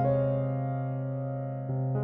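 Gentle keyboard background music: a chord is struck and held, fading slowly, with a new bass note coming in near the end.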